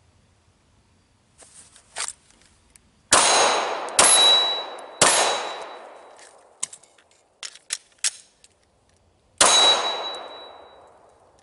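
Four pistol shots: three about a second apart, then a fourth about four seconds later. Each is followed by a long, fading metallic ring, as of a steel target plate being hit. A few light clicks come between the shots.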